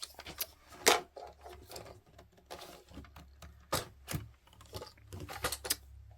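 Hard plastic vacuum-cleaner attachments, a turbo brush and its hose fitting, being handled and pushed together: a run of irregular clicks and knocks, the loudest about a second in.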